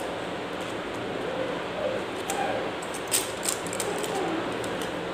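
Scissors snipping into the aluminium foil over a kulfi cup: a few sharp snips and foil crinkles, most of them around the middle, over a steady background hiss.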